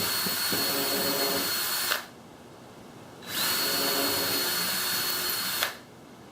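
Power drill with a 1/8-inch bit pre-drilling pilot holes for door hinges in thin plywood, running with a steady high whine. It stops about two seconds in, spins up again a second later and runs for a couple of seconds more before stopping.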